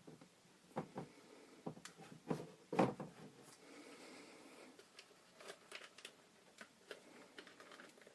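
Faint scattered clicks and light knocks of objects being handled, the loudest knock about three seconds in.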